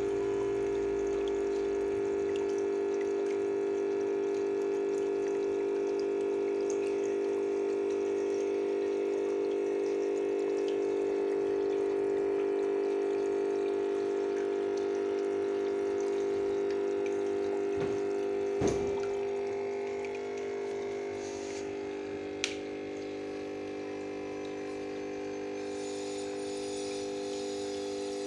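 Aquarium water pump humming steadily with water running, as the tank's water is pumped out. There are two sharp clicks about two-thirds of the way through, and shortly after them the hum gets a little quieter and changes pitch.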